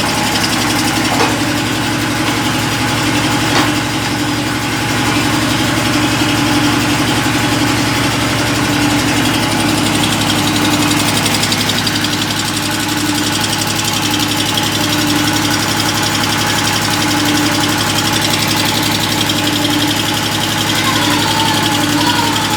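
Machinery of an automatic mawa kettle with a steam boiler running steadily: a low motor hum with a whir that pulses about once a second.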